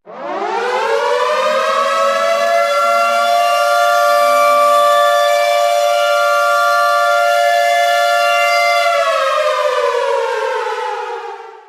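Air raid siren running through one full cycle: it winds up in pitch over about two seconds, holds a loud steady wail on two close notes, then winds down and dies away near the end.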